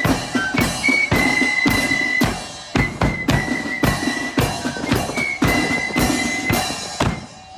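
Flute and drum marching band playing: a high flute tune of held notes over a steady beat of about two drum strokes a second from bass drum and snare. The music stops near the end.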